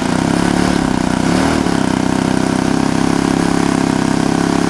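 Model airplane engine running steadily. Its pitch dips and comes back up twice in the first couple of seconds as the throttle is worked, then holds.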